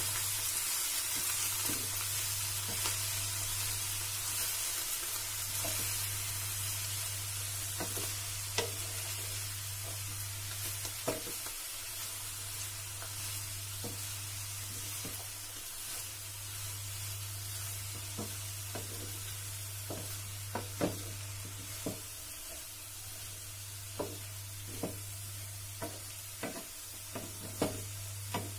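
Brinjal (eggplant) strips sizzling as they fry in a pan while a wooden spatula stirs them. The steady hiss eases slowly, and short knocks of the spatula against the pan come more often in the second half.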